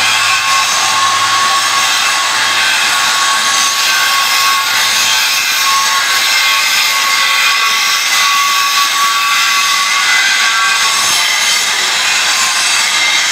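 Steady, loud machine noise with a high whine running through it, as from workshop machinery running without pause.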